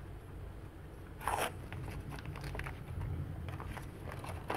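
Small plastic toy capsule being handled and unwrapped: its paper seal peeled and the tissue paper inside crinkled, giving soft scattered crackles and clicks, one a little louder about a second in.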